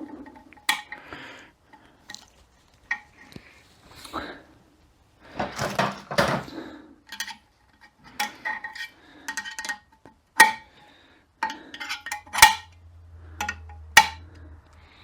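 Steel snap rings and other overdrive parts of a 42RE automatic transmission clinking and scraping as they are handled on the bench, with a string of sharp clinks, some ringing briefly. A faint low hum comes in near the end.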